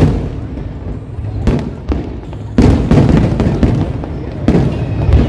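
Aerial firework shells bursting overhead: a rolling series of booms with several sharp cracks among them, louder from about two and a half seconds in.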